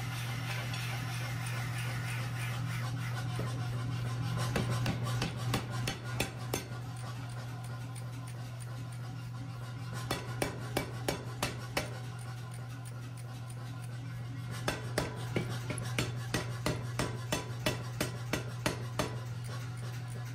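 Mechanical power hammer forging a red-hot 1-1/2-inch square stainless steel bar to a bevel in stop-fitted tooling. Its motor hums steadily throughout. Three runs of quick blows come at about two to three a second: around four seconds in, again around ten seconds, and from about fifteen seconds almost to the end.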